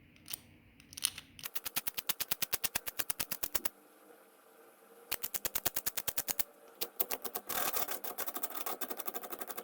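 Sanding strokes on a Zippo lighter's metal case, sped up into a rapid, even rasping of about nine strokes a second. The strokes come in three runs with brief pauses between them, as the raised edges around the lid gap are taken down.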